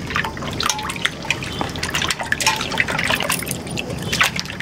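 Hands swishing and squeezing aloe vera gel pieces in water in a metal basin, with irregular sloshing and dripping splashes. This is the rinse that washes off the slimy coating of the gel.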